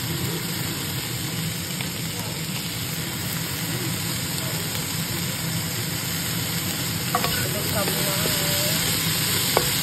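Cauliflower and green beans sizzling in a hot wok, a steady frying hiss over a low hum, with a few sharp clicks near the end.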